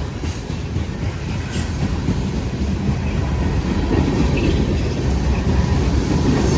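Freight train rolling past with a steady rumble of wheels on the rails, growing a little louder toward the end.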